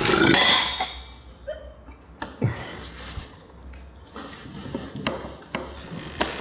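A loud crinkly rustle in the first second, then cutlery, plates and glasses clinking and knocking now and then at a dinner table.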